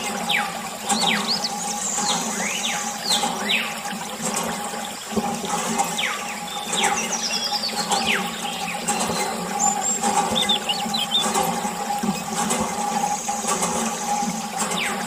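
A thin stream of water pouring and splashing onto a plastic toy backhoe, over a steady hum, with many short high chirps that slide down in pitch.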